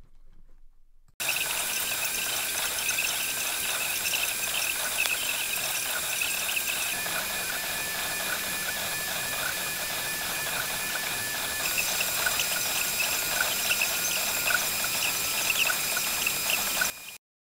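Creality FDM 3D printer running in a sped-up time-lapse: steady fan hiss and whine with quick high chirping squeaks from the stepper motors as the print head moves. It starts about a second in, changes slightly two-thirds of the way through, and cuts off suddenly near the end.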